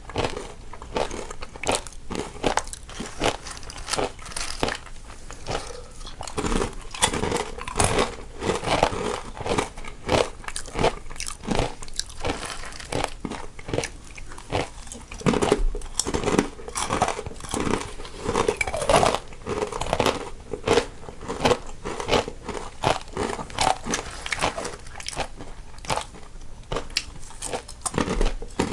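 Crisp snacks being bitten and chewed close to the microphone, a dense, irregular run of crunches. Two eaters, one in each stereo channel.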